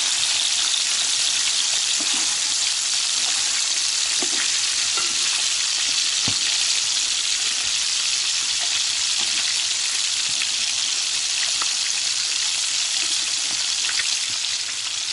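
Pieces of bream sizzling steadily in hot oil in a frying pan, with light scrapes and taps of a metal utensil as the pieces are moved around.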